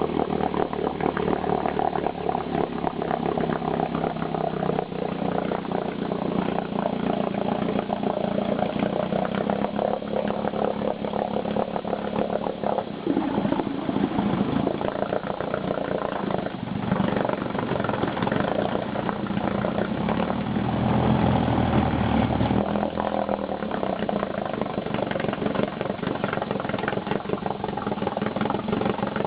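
Johnson 7.5 hp two-stroke outboard motor running, its engine note shifting several times as the throttle is changed.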